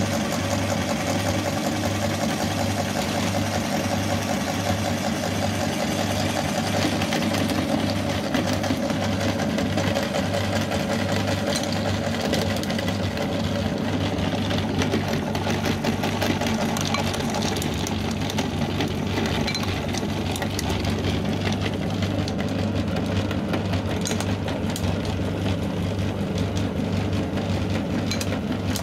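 Belt-driven No. 32 meat grinder running, a steady, evenly pulsing mechanical hum from its spinning pulley and auger. Wax candles are crushed through it, adding crackling clicks that grow more frequent in the second half.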